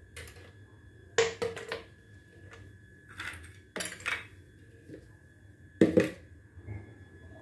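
A plastic blender jug and lid being handled and set down on a tiled counter: a few scattered knocks and clatters, the loudest near the end, over a faint steady high tone.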